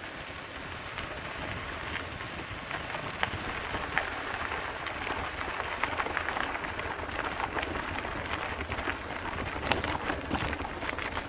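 Crunching and crackling of gravel and dirt underfoot or under tyres on a mountain trail, with many small clicks and rattles.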